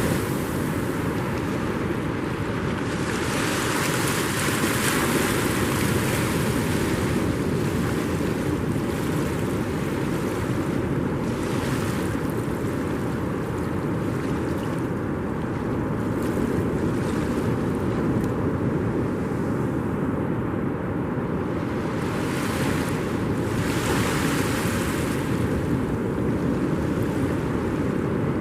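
Ocean surf washing on the beach, the rush swelling several times as waves break, with wind on the microphone.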